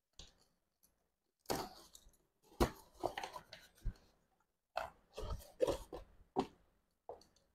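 Cardboard shipping box being cut open and unpacked by hand: a box cutter slits the packing tape, then the flaps and a smaller inner box are handled, in a series of short crinkling, scraping bursts with gaps of silence between.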